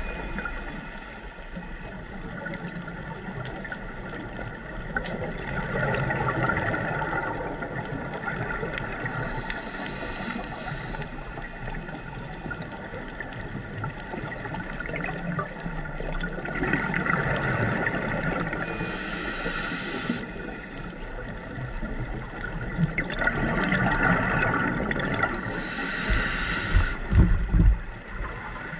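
Scuba diver breathing through a regulator, heard from an underwater camera: a hiss on each inhale and a gurgling rush of exhaled bubbles every several seconds, with a few low thumps near the end.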